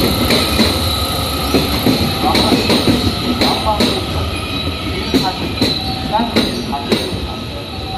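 Electric commuter train running out along the platform, its wheels clicking irregularly over rail joints under a steady high wheel squeal and a low running rumble.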